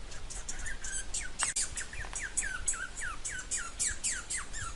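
Squirrel calling: a rapid run of short, sharp chirps, about four a second, each dropping quickly in pitch.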